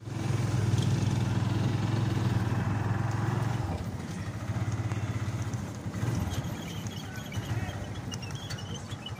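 Motorcycle engine of a tricycle (motorcycle with sidecar) running on the move, heard from inside the sidecar: a steady low pulsing engine hum, loudest for the first four seconds, then easing off.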